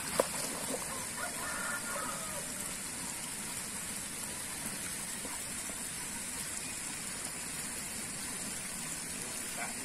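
Steady rush of water at a fish pond, with a single sharp click just after the start and faint voices in the background early on.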